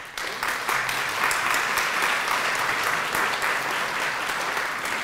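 Audience applauding: steady clapping from many hands that starts right away.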